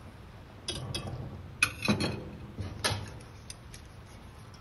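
Whisk and chopsticks knocking against a stainless steel pot: a handful of sharp clicks and clinks, loudest a little under two seconds in.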